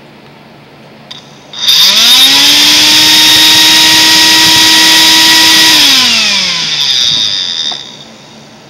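Small electric motor from a Dirt Devil broom vacuum, run bare on a 5-volt bench supply. A click, then a loud whine that rises quickly in pitch as it spins up and holds steady for about four seconds. It then falls in pitch as the motor winds down to a stop.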